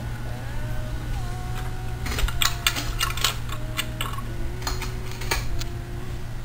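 Light clicks and taps of a golf ball, a wire holder and wooden chopstick rails being handled as the ball is set in place. A quick cluster of clicks comes about two to three seconds in and one more near the end, over a steady low hum.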